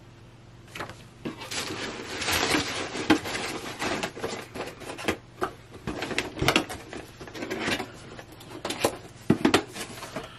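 Cardboard box and paper slip being handled: irregular rustling, scraping and sharp taps of cardboard, starting about a second in and going on in uneven clusters.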